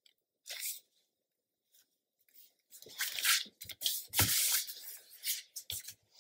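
Paper and cardstock rustling and sliding under the hands as patterned paper panels are pressed and smoothed into the folio's pockets. There is one short rustle about half a second in, then a busier run of scrapes and a few soft knocks against the table from about three seconds on.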